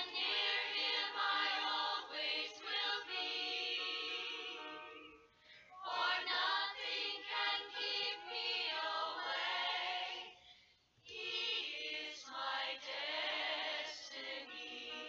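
Choir music: several voices singing a song together, with two brief pauses, about five and about eleven seconds in.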